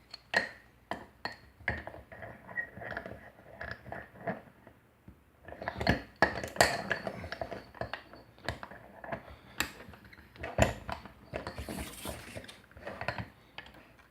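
Picking a Chicago wafer padlock: lock pick and tension wrench clicking, rattling and scraping in the keyway, a run of sharp metallic clicks with a busier patch about halfway through and a single sharp knock later on.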